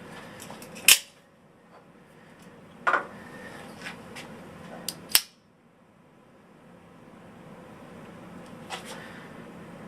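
A handful of sharp clicks from objects being handled, the loudest about a second in and just past the halfway point, with quieter handling sounds between them over a low steady hum.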